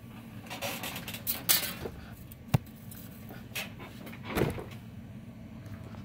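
Handling noises of a seatbelt latch and gear being put down on a workbench: rustling, a sharp click about two and a half seconds in, and a thump a little past four seconds.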